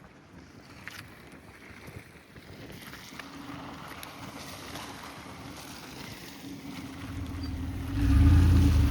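Engine of a snow-clearing tractor drawing near, its steady hum growing louder and loudest in the last second.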